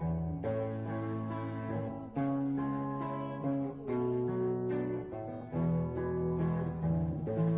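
Guitar playing a slow chord progression, each chord left to ring before the next.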